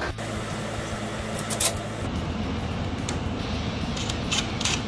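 Plastic fan shroud and motor bracket of a PTAC unit being handled and fitted back into its sheet-metal chassis: a few light clicks and knocks over a steady low hum.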